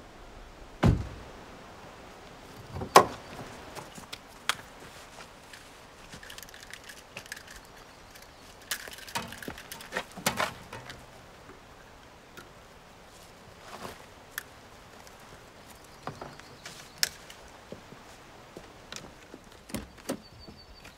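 Scattered thumps, clunks and clicks of two cars being readied for a jump-start: car doors and hoods, and jumper-cable clamps handled in the engine bays. A heavy thud about a second in is the loudest, with a cluster of clicks and clanks near the middle.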